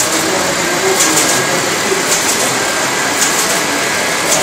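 Rebuilt Bombe code-breaking machine running: its rotating drums and mechanism make a steady, dense mechanical clatter, with sharper clicks about once a second.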